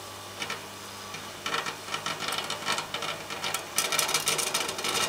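Microwave oven transformer humming steadily under high-voltage load while feeding a fluorescent tube. Around one and a half seconds in, a rapid crackling buzz of arcing sets in and grows louder near the end.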